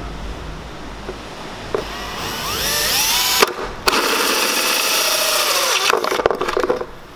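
Cordless drill driving a hole saw into the side of a plastic air filter housing. The motor whine rises as it spins up about two seconds in and stops briefly. It then runs steadily and loudly while the saw cuts through the plastic, stopping shortly before the end.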